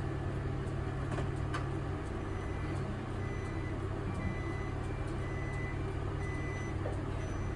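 Bus reverse-warning beeper sounding regular short beeps from about two seconds in, with the bus engine idling underneath: the bus has been put into reverse.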